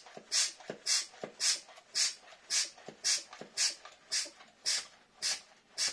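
Hand-pumped vacuum oil extractor being pumped to draw a vacuum that sucks engine oil up through the dipstick tube. Each pump stroke gives a rhythmic hiss of air, about two a second, some with a soft knock.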